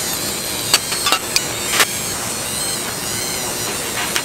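Corded handheld rotary tool running at high speed with a steady high-pitched whine as it is worked against a small metal shifter part. A few sharp ticks come in the first two seconds, and the tool switches off near the end.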